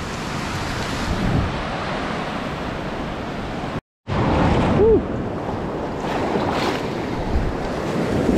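Ocean surf washing and breaking along a sandy beach, with wind buffeting the microphone. About four seconds in the sound cuts out for a moment, then the surf returns louder and closer as water surges around the camera at water level.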